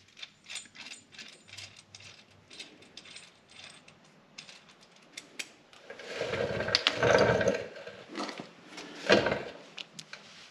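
Metal snowmobile suspension parts and hand tools being handled, giving light scattered clicks and rattles. About six seconds in comes a louder mechanical clattering noise lasting a second or so, and a shorter one near nine seconds.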